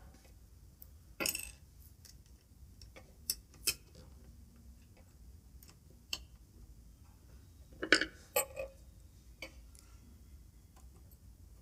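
Scattered light metallic clicks and clinks as a steel needle plate is set back onto a sewing machine bed and its screws handled, with a small cluster of clicks about eight seconds in.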